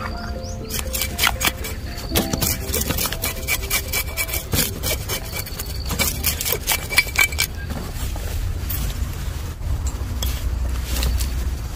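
Cleaver blade scraping scales off a whole barracuda on a wooden chopping board, in quick rasping strokes. The strokes come thickly through the first two-thirds and grow sparser near the end.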